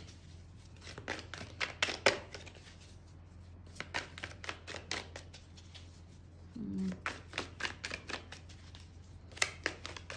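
Tarot cards being handled and shuffled: irregular clusters of crisp clicks and taps as the cards are riffled through and laid on the table.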